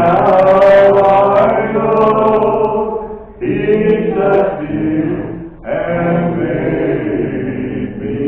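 Congregation singing a hymn together in long, held phrases, breaking off briefly about three seconds in and again about five and a half seconds in.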